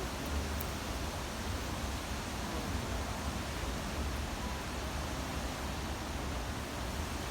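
Wind blowing steadily across an open microphone, a continuous rushing hiss with uneven low buffeting.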